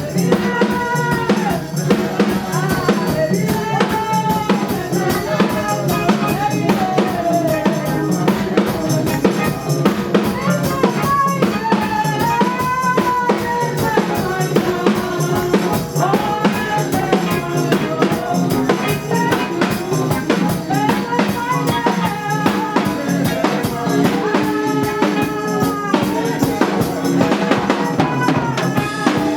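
Praise music played loud and steady: a drum kit keeps a fast, even beat with rimshots, snare and bass drum under a gliding melody.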